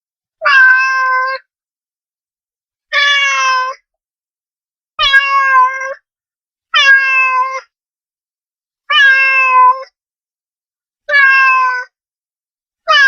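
A cat meowing over and over, about one meow every two seconds. Each meow is a short, even-pitched call with dead silence between them, like a looped sound effect.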